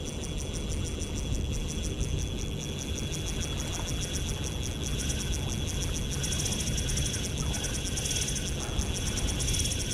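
Shimano Stradic Ci4+ 1000 spinning reel's drag clicking fast and high-pitched as a hooked golden trevally pulls line, growing stronger about six seconds in, over a low outdoor rush.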